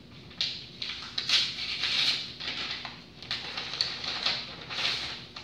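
Paper rustling in irregular bursts as a large manila envelope and sheets of paper are handled.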